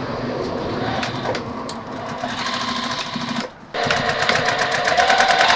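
Electric straight-stitch sewing machine stitching through blue denim with a rapid, even run of stitches. It stops briefly about three and a half seconds in, then starts again and runs louder, tacking the fabric in place.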